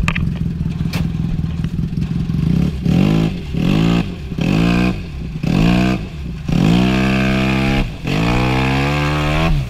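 Arctic Cat Wildcat Sport UTV engine running, then revved hard again and again from about three seconds in, the last two revs longer, as the side-by-side is driven against the load of a deep mud hole while stuck in it.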